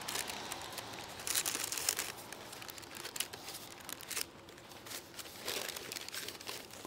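Greaseproof paper lining a Dutch oven crinkling in a run of short crackles as hands press and arrange balls of sticky bread dough on it. The crackling is loudest in the first two seconds and thinner after.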